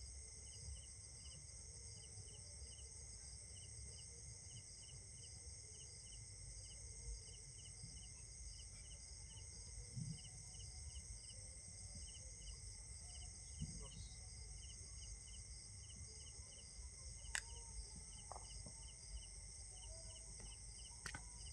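Faint insect chirping: a steady high-pitched buzz with short chirps repeating about three times a second, over a low rumble, broken by a few scattered clicks.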